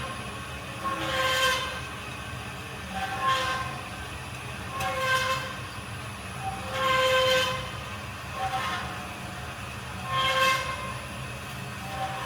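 Ajax AJBS460SA horizontal bandsaw cutting under power feed: a steady low hum, with a ringing, squealing tone from the blade that swells and fades about every two seconds.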